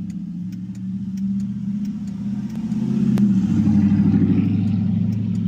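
An engine idling, a steady low hum with a fine rapid pulse that swells a little about three seconds in.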